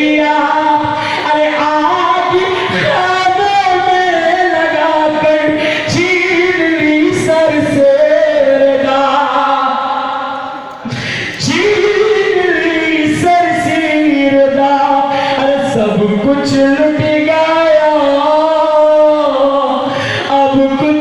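A group of men reciting a noha, the Urdu mourning lament, unaccompanied and in unison, in long drawn-out sung lines. The voices pause briefly about halfway through before the next line.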